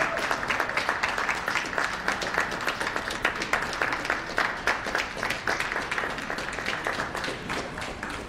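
Audience applauding: many hands clapping at once, thinning and getting quieter toward the end.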